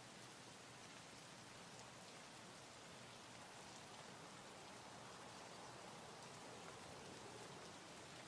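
Near silence: a steady, faint hiss of room tone.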